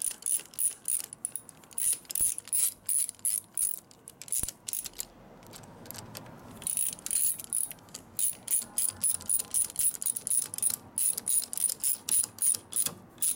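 Socket ratchet clicking, about four clicks a second, as a starter bracket bolt is tightened; the clicking pauses for a couple of seconds near the middle.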